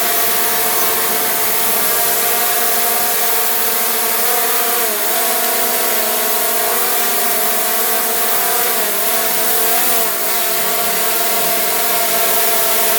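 DJI quadcopter drone's motors and propellers whining steadily. The pitch dips briefly and recovers about five seconds in, and twice more between nine and ten seconds.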